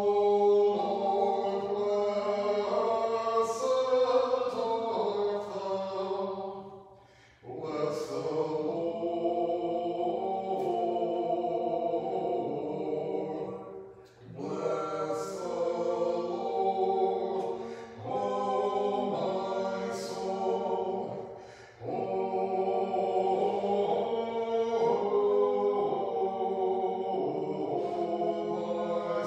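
Church choir singing Orthodox liturgical chant a cappella in several voice parts, in five sustained phrases with short breaks between them.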